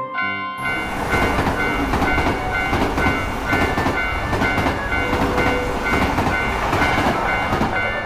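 Sound effect of an electric train passing: a loud, steady rumble with wheel clatter that starts about half a second in and stops near the end. A repeating two-note ringing tone sounds across it.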